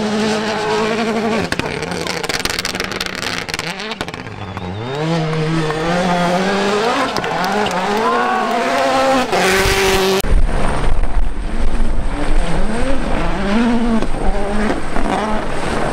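Hyundai i20 N Rally1 car's turbocharged engine revving up and falling back again and again as it slides through a gravel corner, with a short loud burst of noise just before ten seconds. After an abrupt cut, an M-Sport Ford Puma Rally1 car revs up and down through a bend over a steady low rumble.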